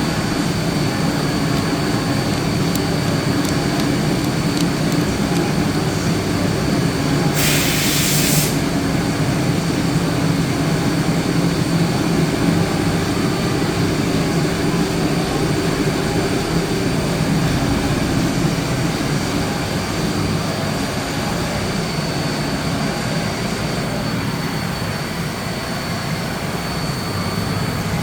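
DMG Mori CMX 50 U machining centre milling Inconel 718: a steady running and cutting noise with a held high whine and low hum, and a brief burst of hiss about seven seconds in.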